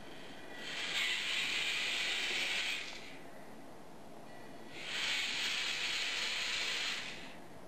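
Small electric gear motors of a remote-controlled K'nex robot's wheeled base running in two spells of about two seconds each, with a short pause between, as the robot turns and drives.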